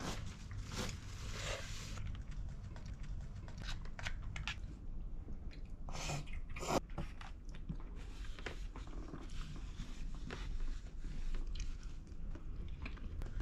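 Close-up eating sounds: chewing, with scattered short clicks and scrapes from chopsticks and an opened tin can on the table.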